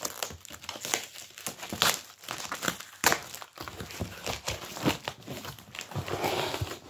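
A cardboard mailer box being pulled open by hand: irregular crinkling, tearing and scraping of the packaging as its flaps are worked loose.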